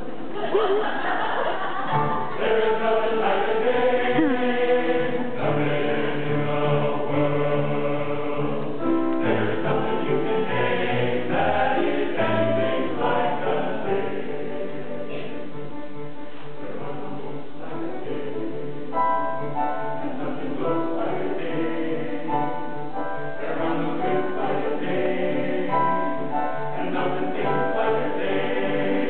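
Men's choir singing in several-part harmony, with held chords over a low bass line.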